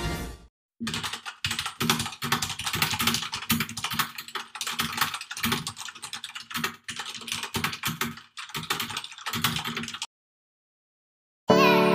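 Computer keyboard typing sound effect: a rapid, uneven run of key clicks that stops about two seconds before the end. Piano music comes in just before the end.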